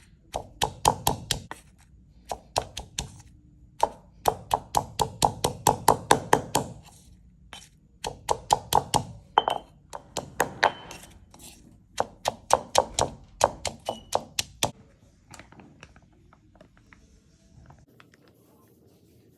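Knife chopping on a cutting board in quick runs of sharp knocks, about four strokes a second, with short pauses between runs. The chopping stops about fifteen seconds in.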